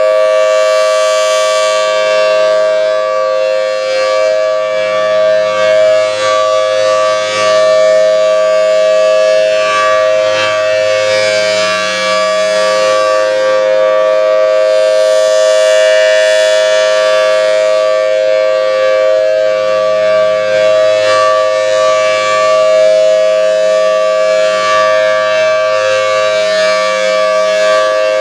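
Federal Signal Thunderbolt civil defense siren sounding a steady chord of two tones during a siren test. The pitch holds level while the sound swells and fades every several seconds.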